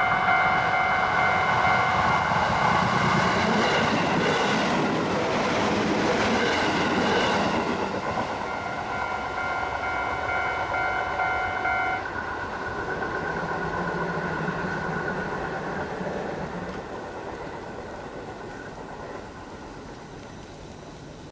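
A Japanese railway level-crossing warning bell rings steadily while a JR Hachikō Line train passes, its wheel and rail noise loudest in the first several seconds. The bell cuts off suddenly about twelve seconds in, and the train's rumble fades away.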